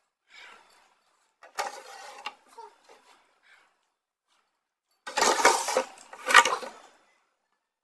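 A woman breathing hard and blowing out air against the burn of chilli: soft breaths, a sharper puff about two seconds in, then two loud blasts of breath in the second half.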